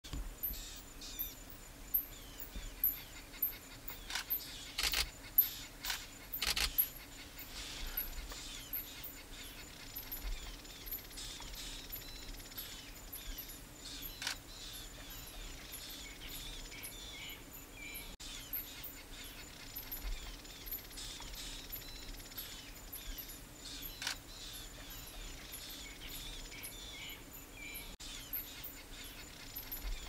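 Outdoor ambience of small birds chirping and calling, with many short high chirps throughout. A few sharp clicks or rustles stand out in the first seven seconds, and a faint steady low hum runs beneath.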